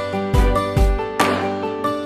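Instrumental background music, pitched notes over a regular beat.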